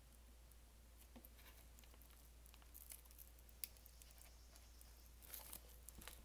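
Faint crinkles and small ticks of plastic shrink-wrap being picked at and torn off a vinyl record sleeve with long acrylic fingernails, scattered and sparse, with a few louder crackles near the end.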